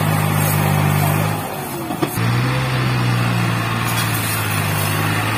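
Farm tractor's diesel engine running hard under load over loose soil. Around the middle its note drops away for about half a second, there is a sharp click, and then it picks up strongly again.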